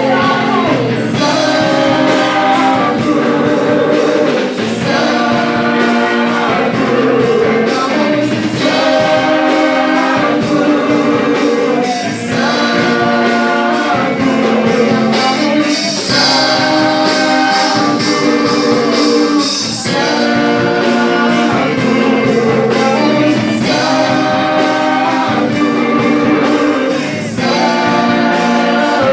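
Worship music: a choir singing with instrumental backing and a steady beat.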